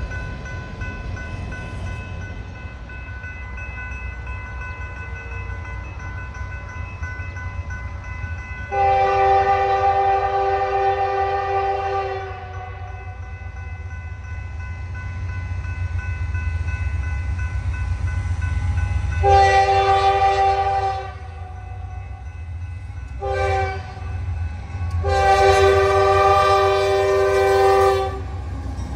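Norfolk Southern diesel locomotive's multi-chime air horn sounding the grade-crossing signal: long, long, short, long, as the train approaches, over the low rumble of freight trains on the line.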